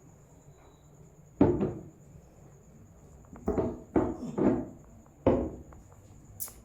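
A masseur's hands striking a client's head and neck during a head massage: five sharp slaps, one alone and then four in quicker succession.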